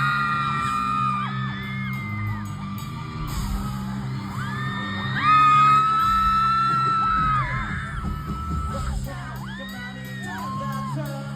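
Concert crowd of fans screaming in a large hall: many high, held screams overlapping at different pitches, over a steady low hum from the band's amplified instruments. One scream stands out loudest about five seconds in.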